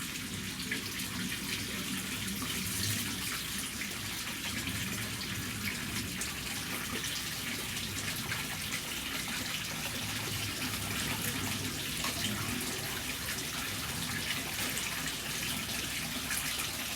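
Water running steadily into a hot-spring bath, a continuous rush with small drips and splashes on top.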